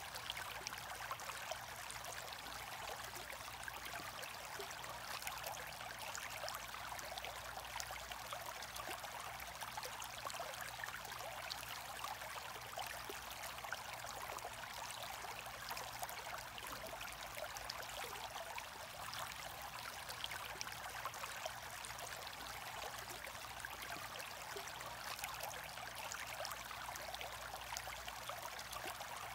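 Aquarium water bubbling and trickling steadily, a fine crackle of small bubble pops, as the aerator's air stream breaks at the surface, with a faint low hum beneath.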